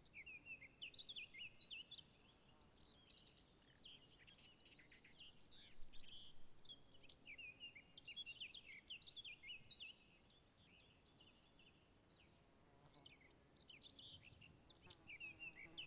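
Faint outdoor ambience: a steady high insect trill, like crickets, with small birds chirping on and off over it.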